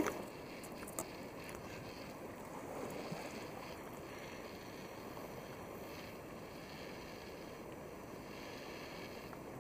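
Kayaks being paddled on a river: a steady low rush of water with paddle splashes, and a single sharp knock about a second in.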